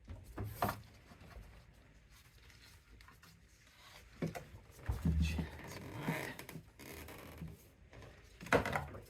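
Scattered knocks, clicks and scrapes of hands working an ATV carburetor into its rubber intake boot, with a dull thump about five seconds in and the loudest knock near the end.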